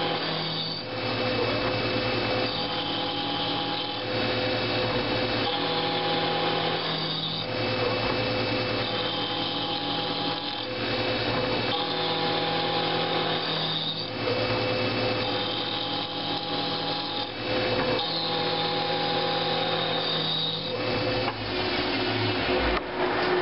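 Vertical milling machine running, its end mill cutting the edge of a rectangular aluminium tube. The machining noise is steady, with a pitched whine that comes and goes about every two seconds.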